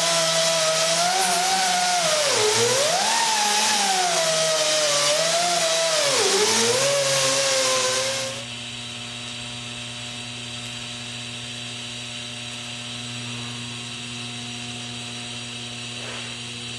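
An air-powered rotary tool on a compressed-air hose whines at high speed against the sheet steel of an ammo can, its pitch dipping twice as it bogs under pressure. It cuts off about eight seconds in, leaving a steady, quieter electrical hum from the TIG welding set.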